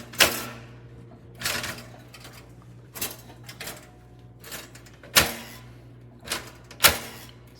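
Cuisinart toaster's carriage lever being pushed down repeatedly and snapping back up, a series of sharp clacks about one a second over a steady low hum. The latch fails to hold the lever down, so the toaster will not start toasting.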